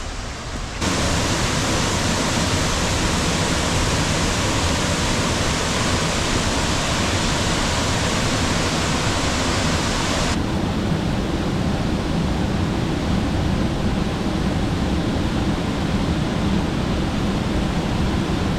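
Loud steady roar of a waterfall in heavy flow, heard close to its base. It jumps suddenly louder about a second in, and about ten seconds in the hiss drops away, leaving a deeper rumble.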